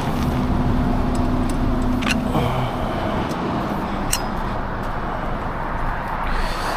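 Steady motor-vehicle noise, a car engine running with road and traffic rumble, with a few sharp light clicks.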